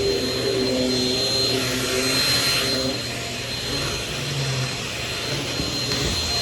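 Shark Rocket stick vacuum running steadily, with a thin high whine from its motor above the rush of air.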